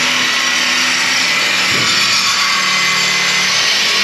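Handheld power tool running steadily against the Suburban's steel exhaust pipe, cutting it. The sound is loud and high, stops right at the end and winds down in pitch.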